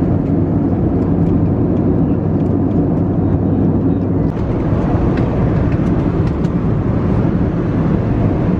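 Steady cabin noise of an Airbus A320-family jet airliner in cruise, heard from a window seat: a deep, even rush of engine and airflow noise.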